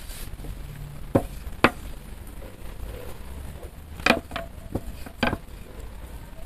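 Thin wooden rolling pin (oklava) knocking against a wooden board as dough is rolled out into a thin sheet: about six short, sharp knocks, two about a second in and four close together later, over a low steady rumble.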